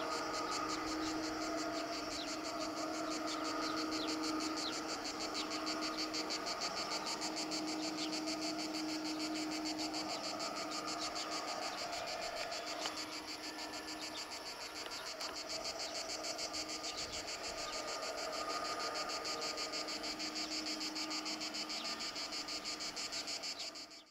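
Insects buzzing in a fast, steady, high-pitched pulse, over a faint low hum from an Airbus A330-200's jet engines as it slows on the runway.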